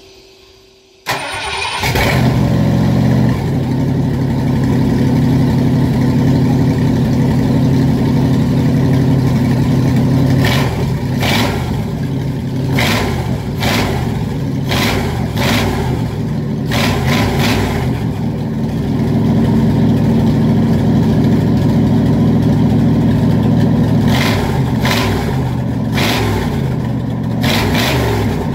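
Ford 460 (7.5 L) big-block V8 running on open headers with no mufflers, fired up about a second in and catching at once. It runs loud with its revs rising and falling several times.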